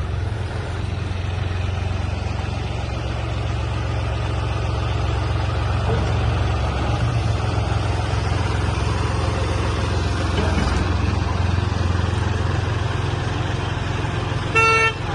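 Tractor's diesel engine running steadily at a low, even hum. Near the end comes one short, loud pitched tone.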